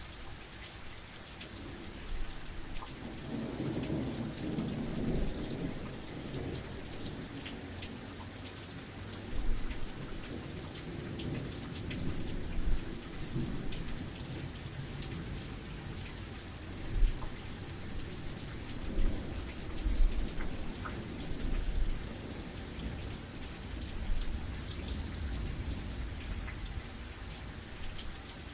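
Steady rain falling, with thunder rumbling low, strongest about three to six seconds in.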